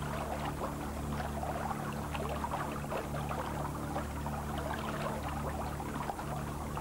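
Shallow forest spring stream trickling and gurgling steadily over a bog floor, with a steady low hum underneath.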